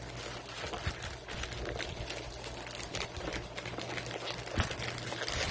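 Plastic parcel wrapping rustling and crinkling as it is handled and torn open by hand, a run of irregular crackles and small clicks, over a steady low hum.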